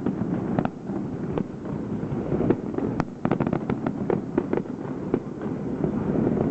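Aerial fireworks bursting: a fast, irregular string of sharp pops and crackles, thickest a little past the middle, over a steady low rumble.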